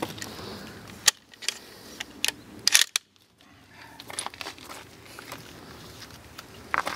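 Sharp clicks and knocks of a scoped hunting rifle being handled, several in the first three seconds and another cluster near the end.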